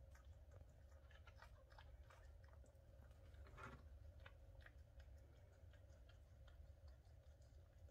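Faint, irregular wet clicks and smacks from a mother cat's mouth as she licks and cleans her newborn kittens, with one slightly fuller sound about three and a half seconds in.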